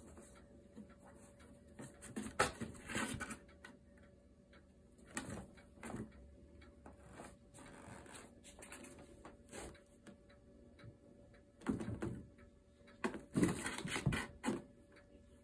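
Kittens scratching and batting at a cardboard box, the cardboard rustling and scuffing in short irregular bursts, loudest near the end.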